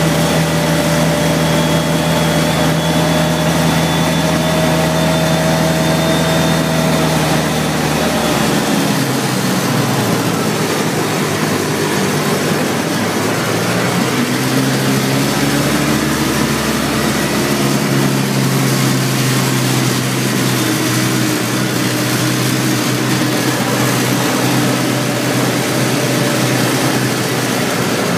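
Car engine and road noise heard from inside the cabin while driving. The engine note falls about eight seconds in, climbs again a few seconds later as the car picks up speed, then holds steady.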